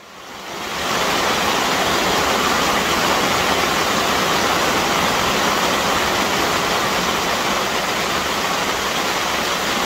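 Hail drumming on the plastic sheeting of a polytunnel greenhouse: a dense, steady hiss that swells up over about the first second.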